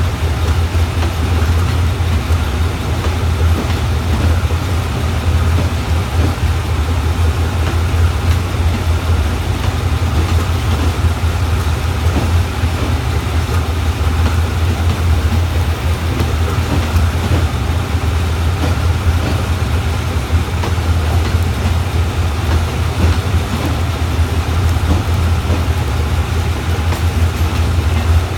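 Eastern & Oriental Express passenger coaches rolling slowly along the platform, a steady low rumble with no break.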